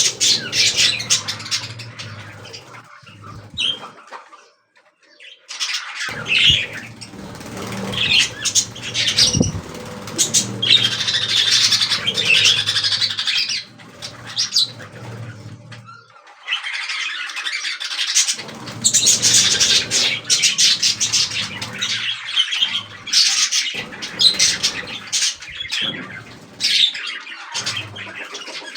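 A flock of budgerigars chattering and squawking in long busy stretches, with two brief lulls.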